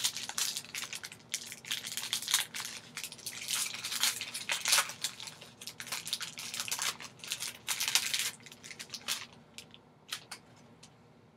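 Foil wrapper of a Panini Prestige trading-card pack being torn open and handled, a dense run of crinkling and tearing for about nine seconds, then a few separate clicks near the end.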